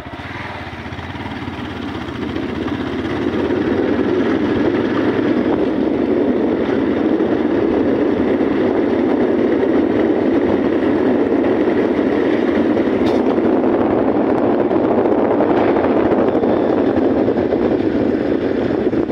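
Motorcycle running along a wet road: engine, tyre and wind noise on the handheld phone's microphone, growing louder over the first few seconds as the bike gathers speed, then steady.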